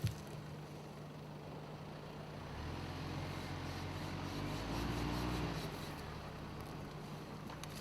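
Mitsubishi Outlander XL's 2.4-litre four-cylinder engine running steadily, then revving up for a few seconds about a third of the way in and easing back down.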